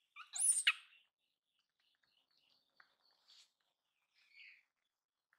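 A baby macaque gives one short, shrill squeal that sweeps up and down in pitch about half a second in, followed by a couple of faint, softer calls. Faint chirping goes on in the background.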